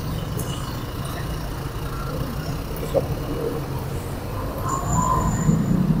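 Wind buffeting a handheld microphone: a steady, fluctuating low rumble.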